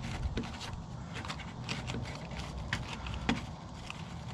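Light scattered clicks and scrapes of a gloved hand feeling around in the rusty steel frame head of a 1960 VW Beetle, with one sharper click a little after three seconds in.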